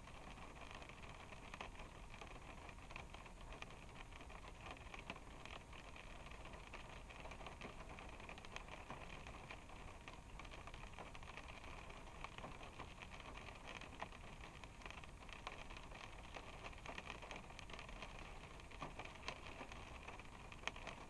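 Rain pattering on a car's roof and windshield, heard from inside the car through a dashcam's microphone: a faint, steady patter with scattered louder drops over a low rumble.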